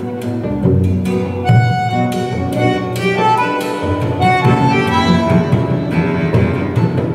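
Recorded music with bowed strings, cello-like low notes under higher lines, played back over AudioMachina floor-standing loudspeakers and picked up in the listening room.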